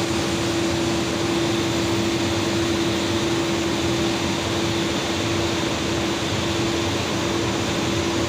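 Rolling mill stand running: steady, dense machinery noise with a constant hum under it.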